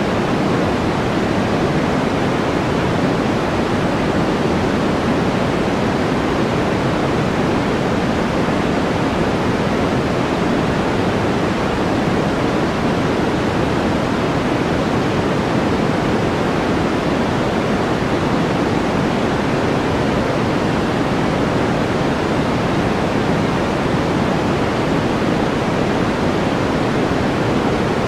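Steady, unchanging background noise track, with more weight in the low and middle range than in the highs, like pink noise or a soft rushing hiss.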